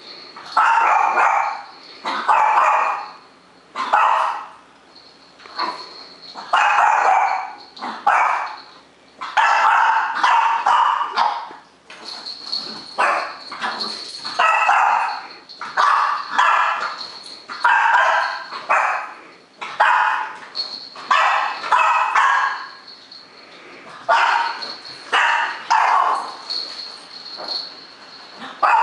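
Boston Terrier barking again and again, a bark or a quick pair of barks about every one to two seconds.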